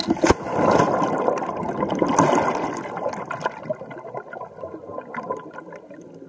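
Scuba diver's back-roll entry into the sea: a splash, then the rush of churning water and bubbles heard through the underwater camera, slowly fading.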